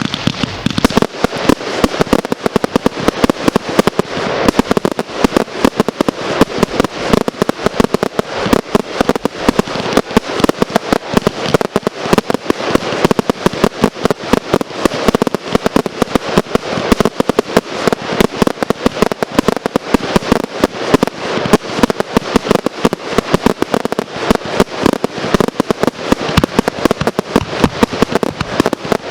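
Consumer firework cakes firing a fast, unbroken string of sharp bangs, several a second.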